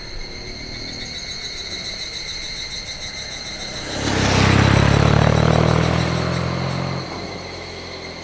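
BMW boxer flat-twin motorcycle, ridden two-up, approaches, passes close by about four seconds in and pulls away; its engine is loudest for about three seconds and then fades. Insects buzz steadily throughout.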